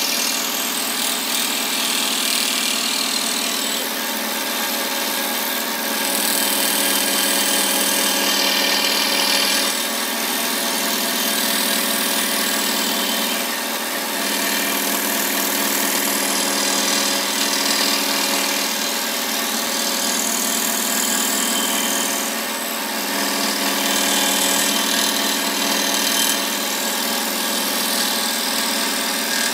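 Scroll saw running steadily, its thin reciprocating blade cutting curves through a small block of wood.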